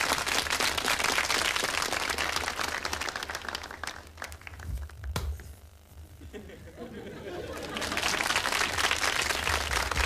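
Studio audience applauding, the clapping thinning out about halfway through and building up again near the end.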